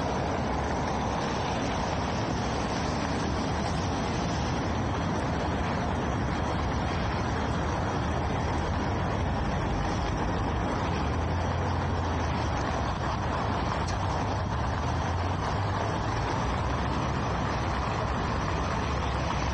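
Steady street traffic noise: cars driving along a snowy city road, with a low engine rumble that grows stronger for a few seconds past the middle.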